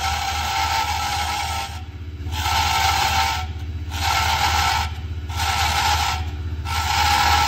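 Small benchtop wood lathe running with a steady low motor hum while a hand-held turning tool cuts a spinning wooden pen blank, making a continuous hissing scrape. The cutting sound breaks off four times for about half a second each, as the tool comes off the wood, then resumes.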